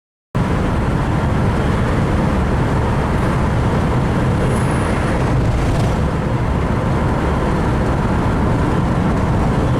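Car driving at road speed: a steady low rumble of engine and road noise that cuts in suddenly from silence just after the start.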